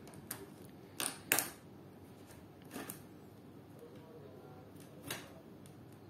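Plastic clips on a Lenovo IdeaPad 3i laptop's bottom cover clicking and snapping as a plastic card pries along the seam: about five short scattered clicks, the loudest pair just over a second in.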